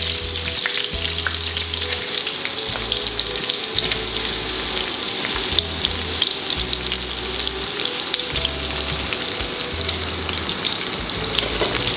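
Sliced onions sizzling and crackling as they fry in hot coconut oil and ghee with curry leaves.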